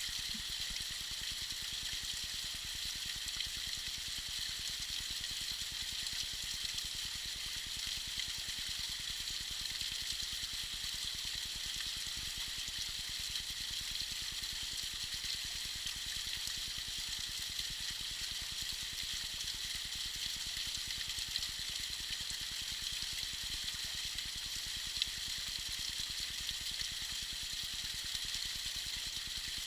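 Small waterfall trickling and splashing: a steady, even hiss of falling water, brightest in the higher register.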